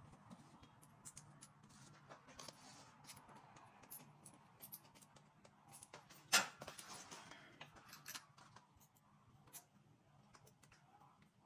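Faint, scattered light clicks and taps of hand tools and metal parts as the air cleaner is fastened to the motorcycle, with one sharper, louder click about six seconds in.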